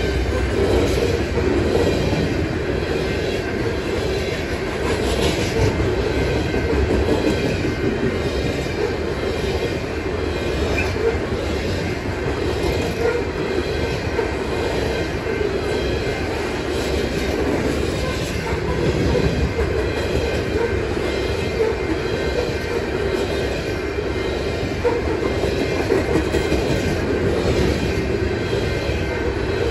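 Loaded coal cars of a freight train rolling past at about 45 mph: a steady rumble of steel wheels on the rails with repeated clicking.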